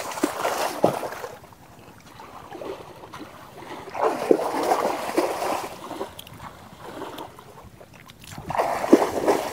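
Water splashing and sloshing in a shallow catfish pond being harvested, in three bouts of a second or two each with quieter gaps between.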